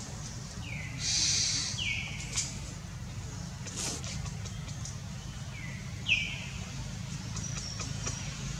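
Four short, high calls, each sliding down in pitch, with the loudest about six seconds in, over a steady low rumble. A brief hissy burst sounds around a second in.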